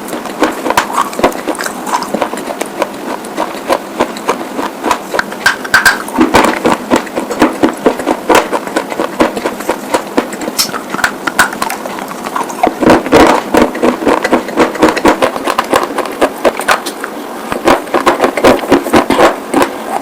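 Close-up crunching of white slate being bitten and chewed: many sharp, crisp cracks in quick, irregular succession, with louder clusters of bites now and then.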